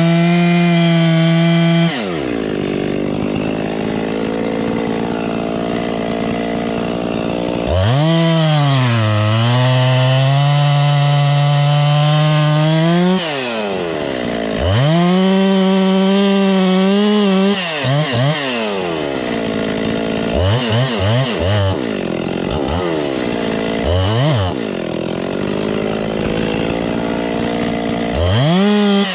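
Two-stroke chainsaw cutting wood. It rises to full throttle for long stretches and drops back toward idle between them, with several quick throttle blips in the second half.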